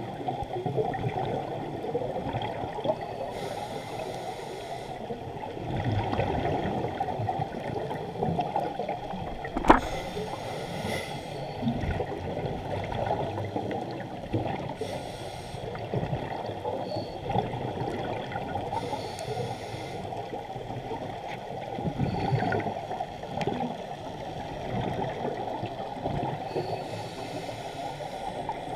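Scuba regulator breathing heard underwater: short bursts of hiss and bubbles every few seconds over a steady muffled water rush, with one sharp click about ten seconds in.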